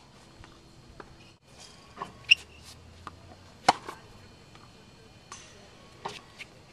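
Tennis ball struck with a racket during ball-machine practice: one sharp pop about three and a half seconds in, with lighter pops and knocks around two and six seconds in.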